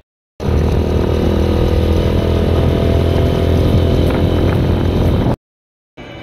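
Motorcycle engine running at a steady speed while being ridden, heard from on the bike. It starts abruptly about half a second in and cuts off abruptly near the end.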